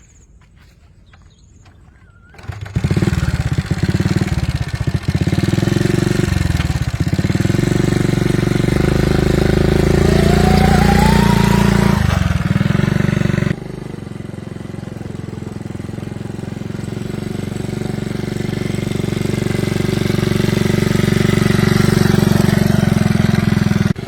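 A motor starts running about two and a half seconds in and keeps going at a steady pitch. Around halfway the sound drops abruptly, then slowly grows louder.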